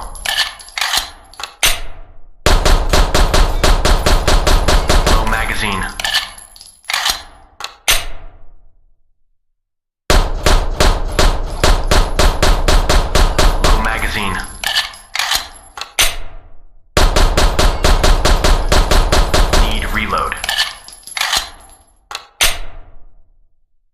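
Hi-Power pistol firing sound effect: rapid strings of shots, several a second, each string thinning out into a few spaced shots, with a faint metallic ring. The pattern comes four times, with a short silent gap before the third.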